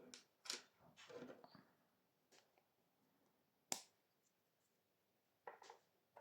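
Faint handling noise from small spider containers being turned and moved: a few scrapes and rustles, one sharp click a little past the middle, and another short rustle near the end.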